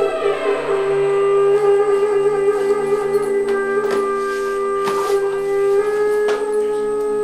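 Film score music: a long held low note over sustained chord tones, with a few soft hits about four, five and six seconds in.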